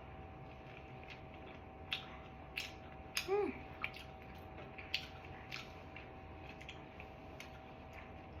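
Someone chewing soft cream-filled bread close to the microphone: scattered wet mouth clicks and smacks, with a brief hummed vocal sound a little over three seconds in.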